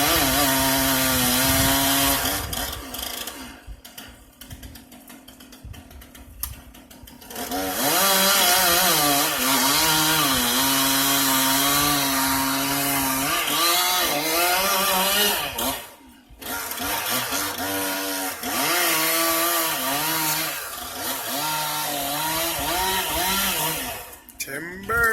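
Chainsaw cutting into a tree being felled, revving high under load. It drops back to a low idle for a few seconds about three seconds in, dips again briefly at about sixteen seconds, and then runs high in bursts until shortly before the tree comes down.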